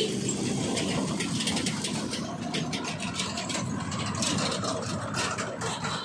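Heavy diesel engines of a backhoe loader and a farm tractor running on the road, with a steady rough engine note and a rattling clatter over it.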